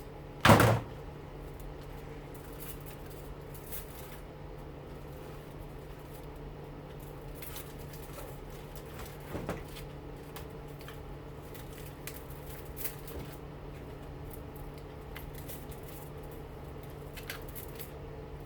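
A single sharp snip of cutters through a copper winding wire of a washing machine motor about half a second in, then a few faint clicks of handling over a steady low hum.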